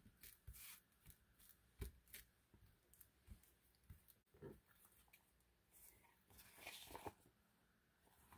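Near silence, with faint scattered rustles and light taps of paper and card being pressed flat and handled by hand.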